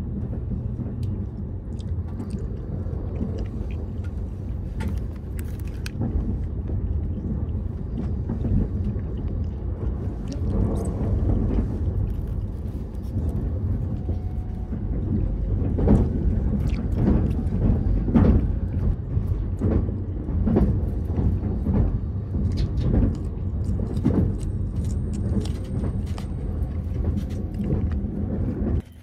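Steady low rumble of a limited express train running, heard from inside the passenger car. From about ten seconds in there is a run of soft, fairly regular knocks.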